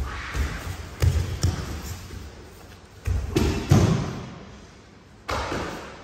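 Judoka bodies thudding and shifting on tatami mats during katame-no-kata grappling, with rustling judo jackets. There are several dull thumps, the loudest about three to four seconds in, and a sharp scuff near the end.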